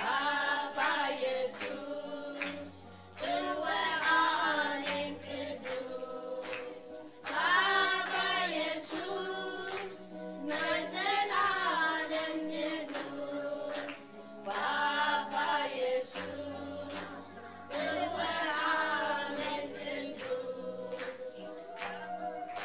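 A group of voices singing a worship song together, in phrases of a few seconds each, over steady low accompanying notes.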